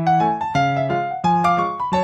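Background piano music: a melody of struck notes over chords, a new note about every third of a second.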